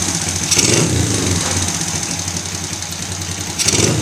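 Honda CRF50's single-cylinder four-stroke engine, freshly fitted with an 88cc big bore kit and larger carb, running just after starting on the first kick. It swells briefly about half a second in and again near the end.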